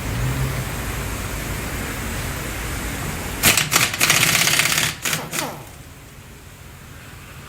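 Pneumatic impact wrench working a wheel's lug nuts: a few short rattling bursts about three and a half seconds in, then a loud burst of about a second, ending with a falling whine as the tool spins down.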